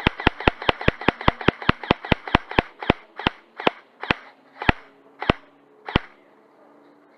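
Airsoft electric rifle, a G&G ARP 556, firing a quick string of single shots at about five or six a second, each a sharp crack. After about three seconds the shots space out and stop about six seconds in.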